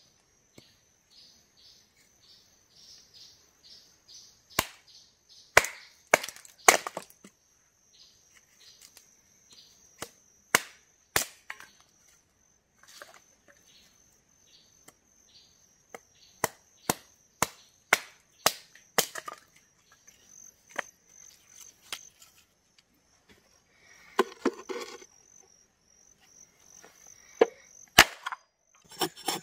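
Hatchet chopping and splitting short firewood logs, irregular sharp strikes of the steel head biting into the wood, some of them loud, with splintering. A steady high thin tone runs underneath.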